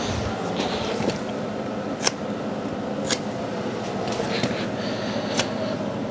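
A steady low background hum in a small room, with a few sharp light clicks and the soft rustle of a person's clothing as he moves.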